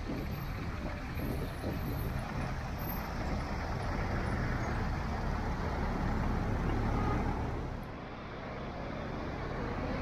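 Road traffic at a city intersection: cars and a city bus driving past with engines running, swelling to its loudest about seven seconds in and easing briefly just after.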